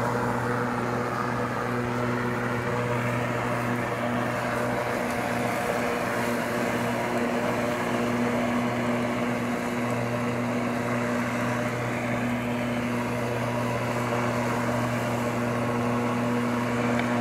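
24-volt electric motors of a homemade remote-controlled robot lawn mower running as it mows grass, giving a steady, even hum.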